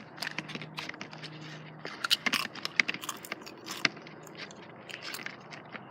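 Homemade slime being kneaded and pulled by hand, giving off many quick, irregular sticky clicks and snaps.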